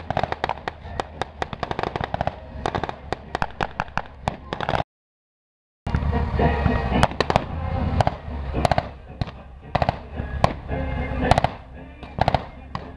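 Blank gunfire from rifles and machine guns: sharp shots cracking in quick, irregular succession, several a second, over a low steady rumble. About five seconds in, the sound drops out completely for about a second, then the scattered shots resume.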